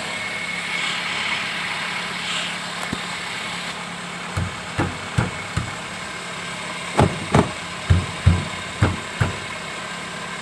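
Honda Brio's engine idling steadily, with a run of dull knocks over it: four light ones about halfway through, then six louder ones in quick succession, as the wheel and suspension are worked by hand to check for play.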